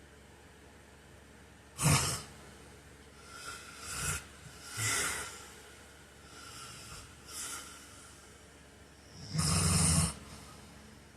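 A sleeping man snoring irregularly. There is a short, sharp snort about two seconds in, then a run of softer uneven snoring breaths, and one long loud snore near the end.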